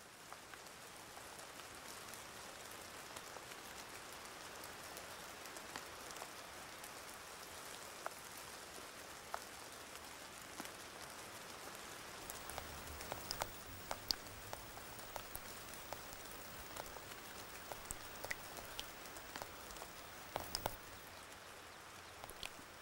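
Faint steady rain, with single drops landing close by as sharp little ticks, more often in the second half.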